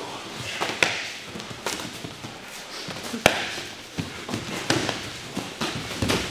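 Sparring in gloves and shin guards: irregular sharp slaps and thuds of strikes landing and bodies colliding in the clinch, over shuffling on the mats. The loudest slap comes a little past three seconds in.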